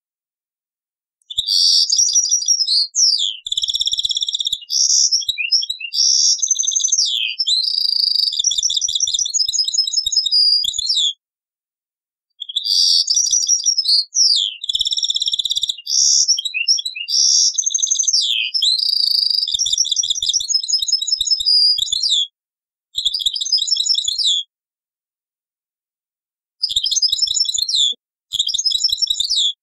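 A European goldfinch singing: fast twittering phrases of trills, buzzy notes and quick whistled slurs. The song starts about a second in and runs in long bouts with a short pause near the middle, then comes in shorter bursts separated by silent gaps near the end.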